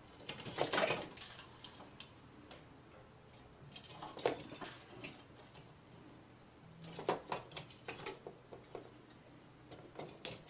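Hand wire stripper clicking and scraping as it strips insulation off the ends of fixture wires, in three short bursts of clicks.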